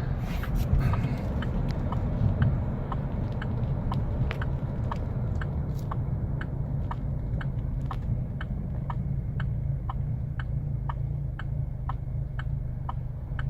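Chevy Colorado pickup's engine idling roughly, a steady low rumble heard from inside the cab, with an even ticking about twice a second over it. The rough idle is caused by a faulty cam phaser, with trouble code P0017 set.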